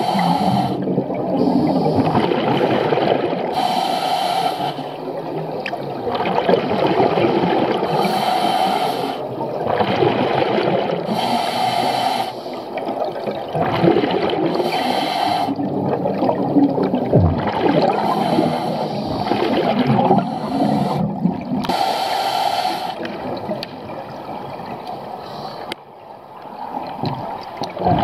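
Scuba diver breathing through a regulator underwater: a hiss with each inhale, then a rush of bubbling exhaust with each exhale, repeating every few seconds.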